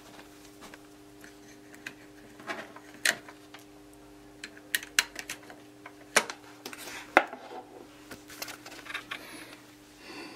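Irregular sharp clicks and knocks of a small plug and cables being handled at a USB Android TV stick, the loudest about three, six and seven seconds in, over a steady low hum.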